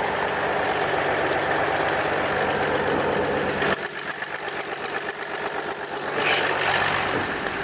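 Audi A7's V6 TDI diesel engine idling roughly, with an even pulsing beat, and shaking. The cause is an injector hold-down bolt pulled out of the cylinder head's threads, so an injector has lifted and the engine is smoking. The sound drops in level a little under four seconds in.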